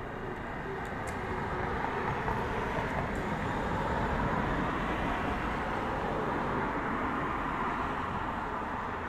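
A car driving past: its tyre and engine noise swells to a peak about halfway and then fades.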